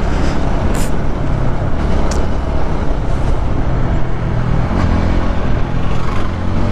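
TVS Apache 200 motorcycle's single-cylinder engine running steadily under way, heard from the rider's seat with wind and road noise rushing over the microphone.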